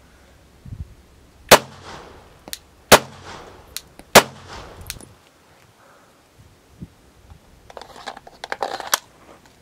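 Three 9mm pistol shots about a second and a half apart, each followed by a short echo, then lighter clicks and clatter near the end.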